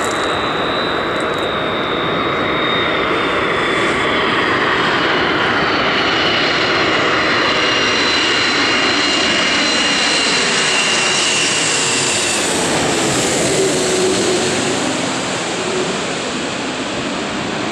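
Airbus A330-200's twin General Electric CF6 turbofans on final approach, passing low overhead. Loud, steady jet engine noise with a high whine that slowly falls in pitch as the airliner goes by, easing off slightly near the end.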